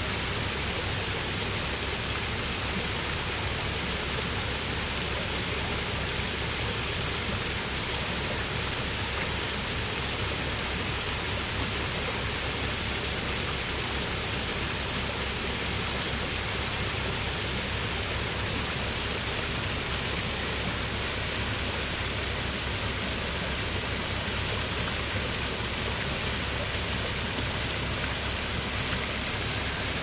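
Small waterfall spilling in many thin streams over stacked stone ledges into a shallow pool, a steady, even splashing.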